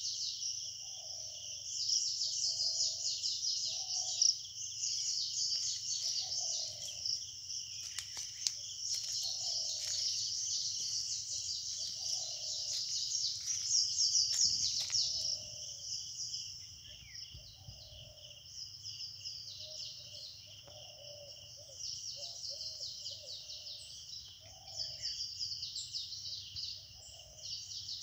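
Forest morning bird chorus: dense, continuous high chirping, with a low hooting call repeated every second or two. The high chirping thins out a little after about halfway.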